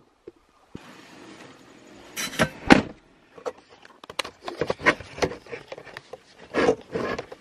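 A car door opened and a person climbing into the driver's seat, with a few heavy thuds a little over two seconds in as the door shuts. Scattered clicks and rustling from inside the cabin follow.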